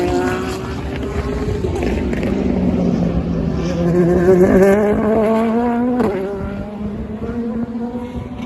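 Race car engine accelerating hard, its pitch climbing and then dropping sharply at an upshift about six seconds in. It is loudest just before the shift, then fades as the car pulls away.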